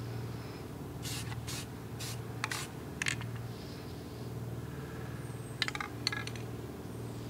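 Aerosol can of flat black enamel spray paint giving short spritzes: about five quick bursts in the first three seconds, and a few more about six seconds in. A steady low hum runs underneath.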